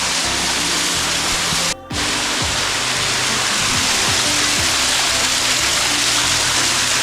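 Waterfall rushing close by, a loud steady hiss of falling water that cuts out briefly about two seconds in, with music playing underneath.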